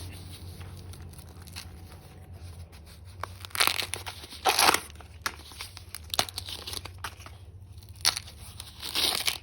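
Husks being torn and peeled back from an ear of corn by hand: several short ripping, rustling pulls, the loudest about three and a half and four and a half seconds in.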